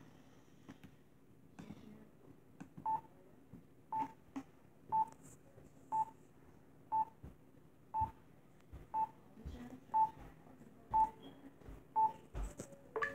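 Ten short beeps at one steady pitch, one a second: a laptop camera app's self-timer counting down before recording starts. A few faint knocks come before and around the beeps.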